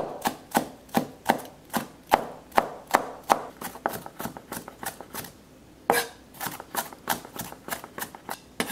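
Chef's knife mincing spring onion bases on a plastic cutting board: a steady run of sharp chopping strikes, about two and a half a second. A pause of about a second comes just past the middle, then the strikes resume quicker and softer.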